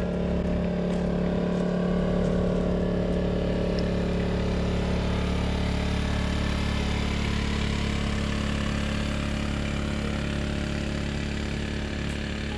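An engine running steadily at an even speed, easing off slightly near the end.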